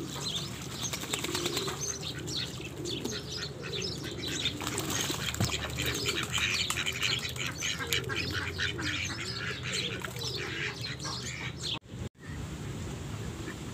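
Mixed birds calling: busy high chirping and twittering over a low, rising-and-falling call repeated about twice a second, with a brief break just before twelve seconds in.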